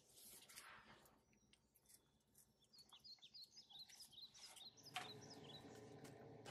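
Near silence with faint, high bird chirps from about two and a half seconds in, and a single soft click near the five-second mark.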